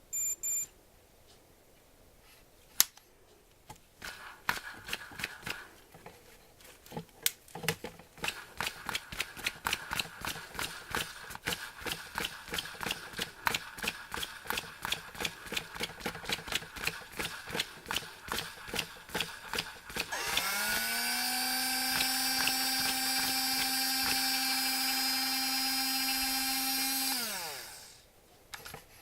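Shimano Dendou-maru 3000SP electric fishing reel: two short electronic beeps, then a long run of regular clicking from the reel. Near the end its electric motor spins up, runs at a steady pitch for about seven seconds, and winds down.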